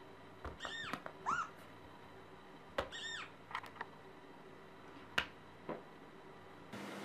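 Cat mewing: three short, high-pitched mews, each rising then falling in pitch, within the first three seconds or so, with a few sharp clicks afterwards.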